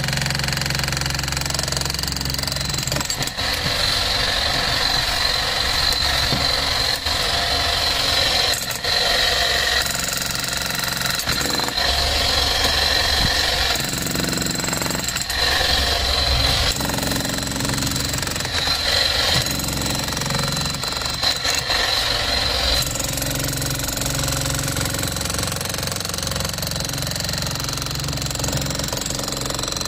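Bosch GSH 11 E corded electric demolition hammer running continuously, its chisel hammering into a concrete slab. The sound is loud and steady, with brief changes every few seconds.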